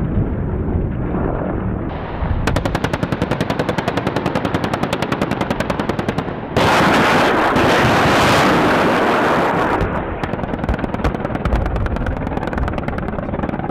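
Helicopter rotor noise, then from about two seconds in an attack helicopter's nose cannon firing a long, rapid burst of about a dozen shots a second. About halfway, a louder continuous roar takes over for some three seconds before the rotor noise returns.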